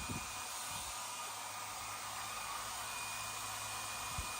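Steady background hiss, with a faint low hum that fades out about a second in.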